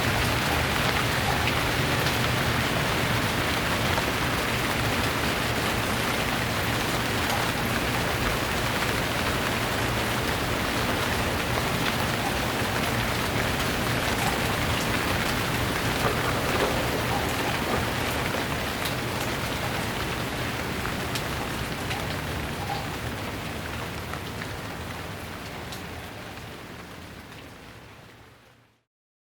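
Steady rain falling, with scattered individual drops heard through the hiss. It fades out gradually over the last ten seconds or so.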